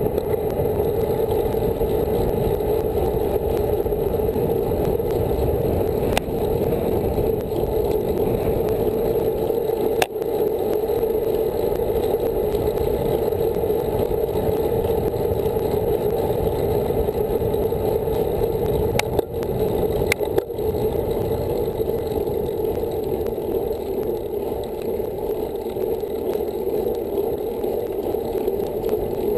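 Steady rush of wind and road noise on a bike-mounted camera's microphone as a road bike rolls along at speed, with a few brief sharp clicks.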